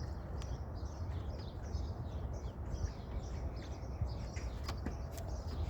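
Small birds chirping repeatedly over a steady low rumble, with a few faint clicks.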